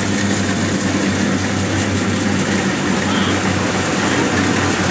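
Kubota DC70 rice combine harvester's diesel engine running steadily under load as the machine drives forward and cuts standing rice: a constant low drone with a hiss of machinery over it.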